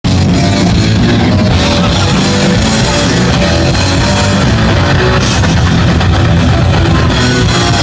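Live heavy metal band playing loudly: a pounding drum kit with electric guitar notes held over it.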